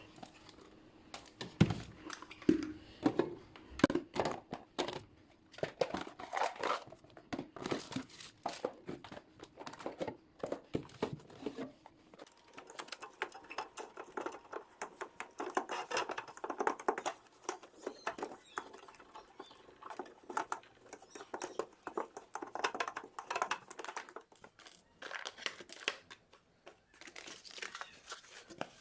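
Plastic bags and food packaging crinkling and rustling as they are handled, with light knocks and clatter of containers, densest in the first twelve seconds.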